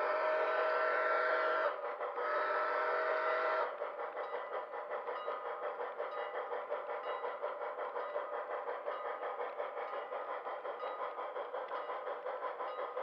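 Two long blasts of a model steam-locomotive whistle sound on an HO-scale train, a chord of several steady tones, the second starting just after the first ends. After that, steady rapid clicking and clatter of the model train's wheels running along the track.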